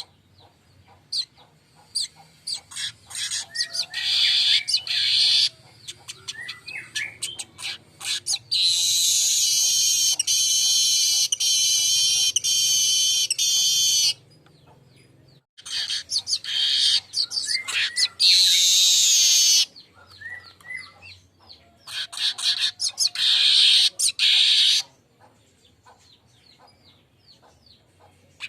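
Manyar weaver bird singing: rapid dry ticking chatter building into long, loud, high buzzy wheezes, repeated several times with short pauses between.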